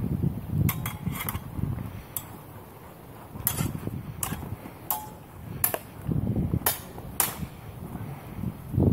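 Practice longswords clashing during sparring: about ten sharp blade-on-blade clacks, some in quick pairs, over low wind rumble on the microphone.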